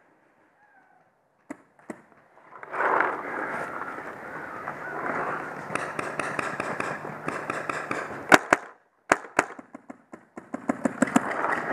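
Paintball markers firing: two single pops about a second and a half in, then repeated sharp shots over a steady rough noise, the loudest cracks around eight to nine seconds in and rapid strings near the end.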